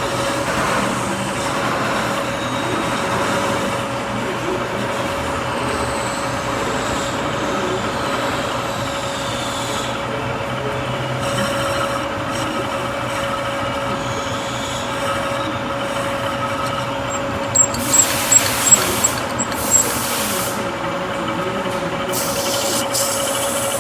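Machine tool running steadily with a constant hum, and a quick run of sharp scraping hits about eighteen seconds in, typical of metal cutting.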